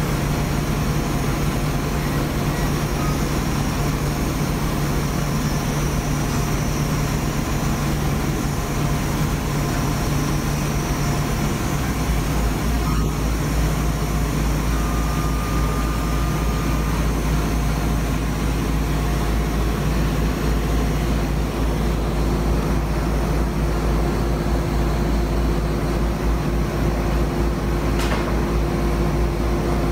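Laser cutter running during a cut: a steady machine drone from its exhaust and air-assist, with a low hum that drops lower about twelve seconds in.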